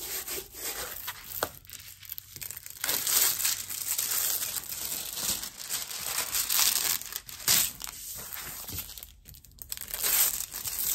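Crinkling and rustling of a diamond painting canvas as it is unrolled from its paper wrapping and its clear plastic cover film is peeled back from the sticky adhesive, with a brief lull about nine seconds in.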